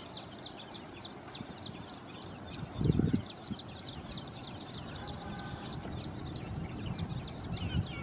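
A background chorus of small birds chirping, with rapid short high chirps overlapping throughout. A brief low thump comes about three seconds in.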